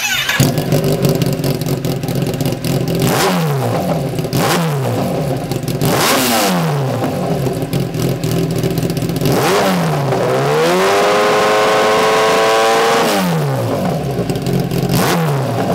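Kawasaki ZX1000 inline-four sportbike engine breathing through a Lextek VP6 aftermarket silencer, idling and revved in several quick throttle blips. About two-thirds of the way in, one rev is held high for a couple of seconds before it drops back to idle.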